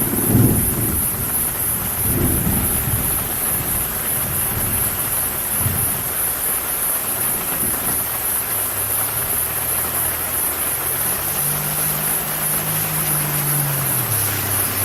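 Steady rain falling, with low rolling thunder rumbles in the first few seconds and once more a little later. In the second half a low droning hum comes in and shifts up and down in pitch.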